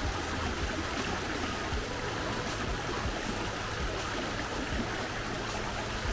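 Shallow, fast-flowing river running over a stony bed: a steady rush of water.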